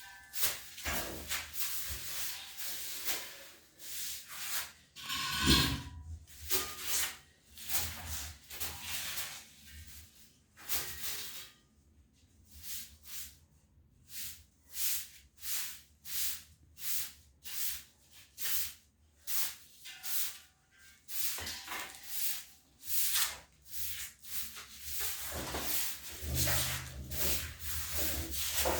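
Repeated rubbing strokes, coming about one a second, with a louder scrape about five and a half seconds in.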